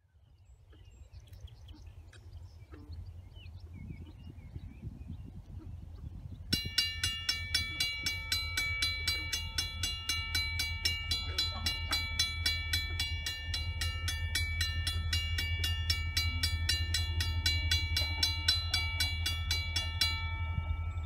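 Railroad crossing warning bell starts about six seconds in and rings in rapid, evenly spaced strikes as the crossing activates. It falls silent shortly before the end, once the gates are down, leaving a faint lingering tone. A low steady rumble runs underneath.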